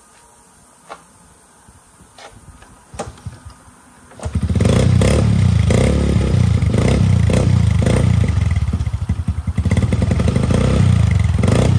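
A few clicks, then about four seconds in a dirt bike's engine starts and runs loudly, dipping briefly a little past the middle before picking up again.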